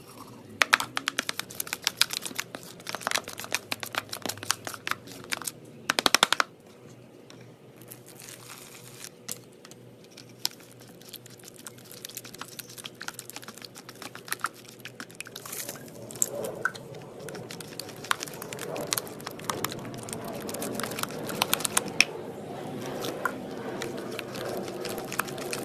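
Thick white glue being stirred with a plastic spatula in a plastic bowl: rapid sticky, wet clicks and crackles, densest in the first six seconds, then a fuller churning of the mix in the last ten seconds.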